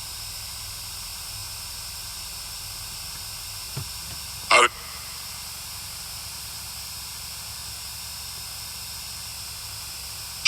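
Steady hiss of static, broken once by a short, loud burst about four and a half seconds in.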